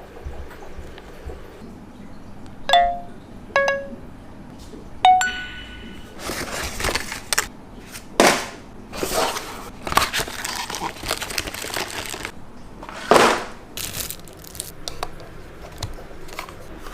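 Packaging being handled during an unboxing: three sharp clicks, each with a brief ringing tone, a few seconds in, then repeated rustling and scraping of the packaging.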